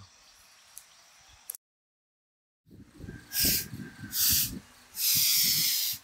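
A man breathing out hard three times in quick succession while doing push-ups, each breath a loud hiss, the third longer than the first two. Before them comes a second of dead silence.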